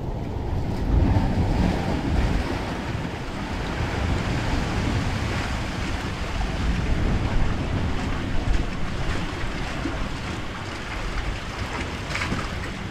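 Ocean waves washing and breaking, with wind buffeting the microphone in a steady rumble.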